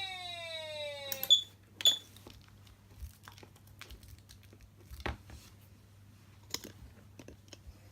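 Electronic siren tone from a Patlite SAP500BZ siren amplifier sliding steadily down in pitch and cutting off about a second in. Two sharp clicks follow close together, then scattered faint clicks and taps.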